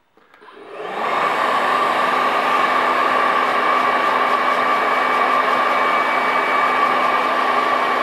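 Conair Infinity 3Q hair dryer with a brushless motor, switched on at low speed: it spins up over about the first second, then runs steadily, a rush of air with a steady whine.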